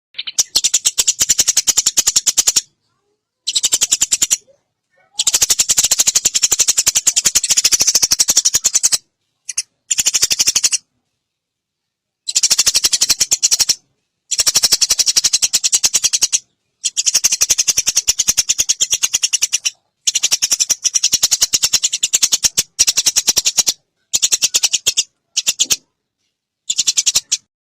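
Songbird mastering recording: loud, rapid rattling trills in phrases of one to four seconds, each cut off into complete silence before the next begins.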